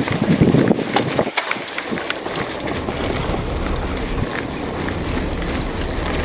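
Mountain bike rolling over a dirt track, with wind buffeting the microphone. There are sharp knocks and rattles in the first second or so, then a steady rumbling noise.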